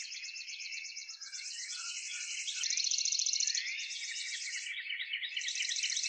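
Birds chirping over a steady, high, rapidly pulsing insect chorus, with a brief click and a sudden change in the insect sound about two and a half seconds in.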